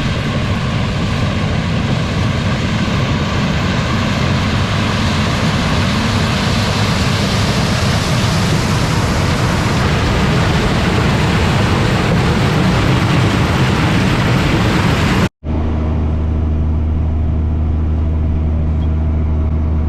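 Heavy farm machinery running in the corn harvest: a dense, loud machine noise with a low engine hum. After a sudden cut about fifteen seconds in, it gives way to a steadier, deeper engine drone.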